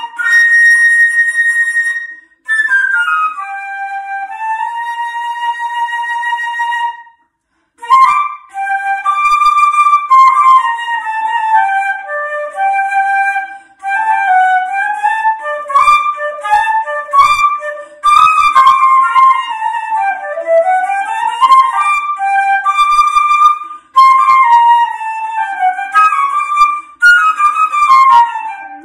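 Instrumental background music: a single melody line in quick, running notes that rise and fall, with no bass. It stops briefly about seven seconds in, then carries on.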